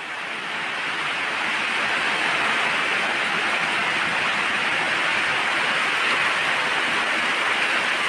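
Heavy rain pouring down in a dense, steady hiss, swelling over the first couple of seconds and then holding even.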